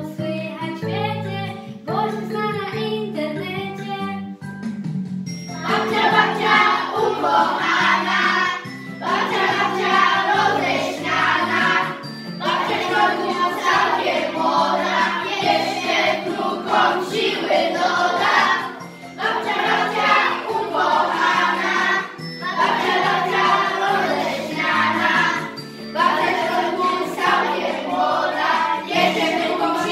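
A group of young children singing a song together over instrumental accompaniment. It starts thinner and becomes fuller and louder about five seconds in, with short breaks between phrases.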